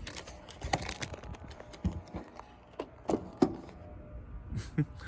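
Irregular knocks, taps and rubs of a handheld phone being moved around at arm's length, a few sharp clicks among softer rustling.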